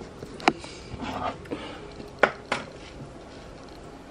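A few light clicks and knocks, three sharper ones about half a second, two and a quarter, and two and a half seconds in, over faint room noise.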